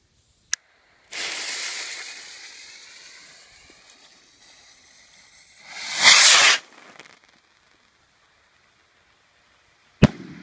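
A Jorge JR101 Thunder Rocket: a sharp click, then the fuse hissing loudly from about a second in and fading. About six seconds in the rocket launches with a louder rushing hiss that swells and cuts off. Near the end the rocket's report goes off as one sharp, extremely loud bang that echoes briefly.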